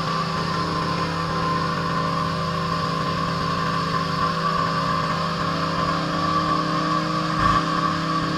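Pressure washer running steadily, its engine droning under the hiss of the water spray, with a short low thump about seven and a half seconds in.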